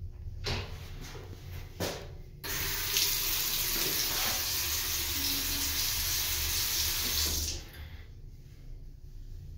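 Water running from a washroom fixture: a steady rush that starts suddenly, holds for about five seconds and cuts off abruptly.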